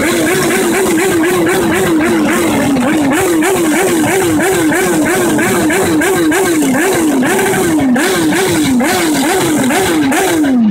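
A pitched wail rising and falling about two to three times a second, very regularly, over the rumble of a street full of idling motorcycles.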